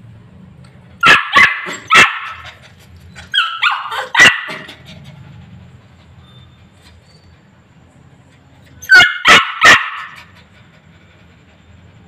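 Labrador puppy barking in short, high yaps, in three clusters: a few in quick succession about a second in, a couple more around four seconds, then another three about nine seconds in.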